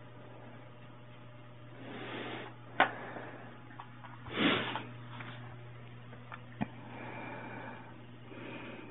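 Quiet handling noises from hands, syringe and camera being moved: two brief rustling swells and two sharp clicks, over a steady low hum.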